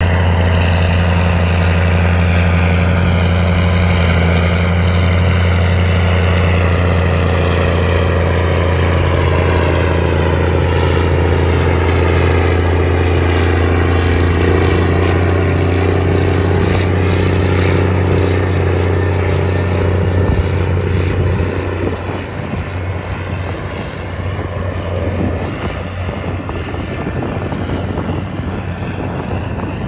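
Steiger Tiger III ST-470's Cummins KTA-1150 diesel engine running steadily under load while pulling an air seeder, a deep even drone. About twenty seconds in the drone fades and turns rougher as the tractor moves off.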